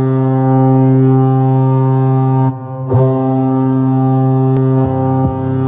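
Ice hockey arena goal horn sounding: a loud, low air-horn tone in one long blast, a brief break about two and a half seconds in, then a second long blast. The beat of the goal song starts underneath it near the end.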